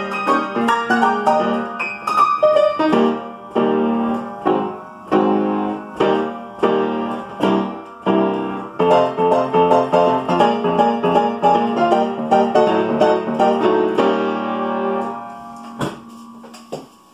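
Upright piano played by a Pianola push-up piano player from a perforated paper music roll: rhythmic chords on a steady beat. The piece ends about fifteen seconds in on a held chord that dies away, followed by two sharp clicks.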